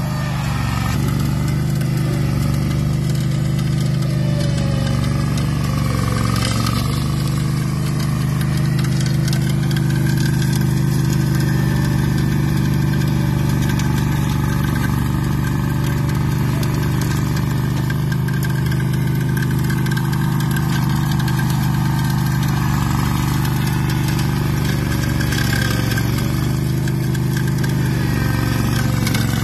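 AS-Motor 830 Enduro ride-on high-grass mower's 14 hp engine running steadily as the machine mows and mulches overgrown grass and brush.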